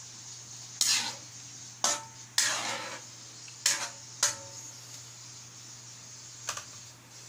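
Metal ladle knocking and scraping against the wok while stirring a watery sardine stew, about six sharp strokes, one of them a longer scrape, over a low steady hum.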